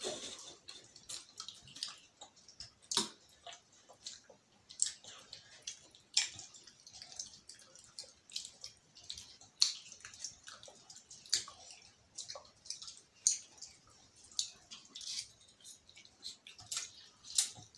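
People eating spicy instant noodles: irregular wet slurps, mouth smacks and chewing, a few short clicks a second, with the odd tap of a fork on a plate.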